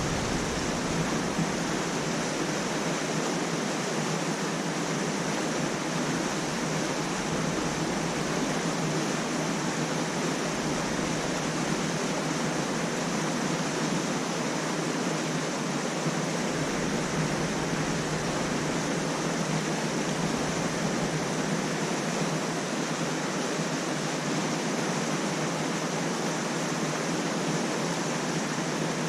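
Steady, even rushing noise with no breaks or separate sounds in it.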